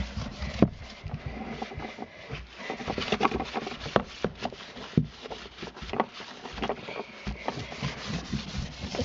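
Kitchen towel scrubbing and rubbing against the inside of a plastic storage bin, with irregular knocks and clicks of the plastic as it is worked.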